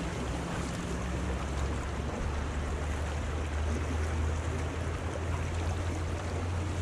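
Swollen, muddy creek water rushing steadily, with a low rumble underneath.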